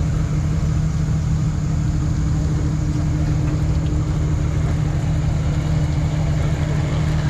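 Vehicle engine running steadily at an even pitch, a constant hum with no revving.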